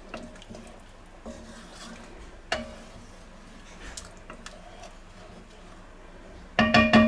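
Wooden spoon stirring broth and vegetables in an enamelled cast-iron cocotte: soft sloshing with now and then a knock of the spoon against the pot. Near the end comes a quick run of louder knocks that ring.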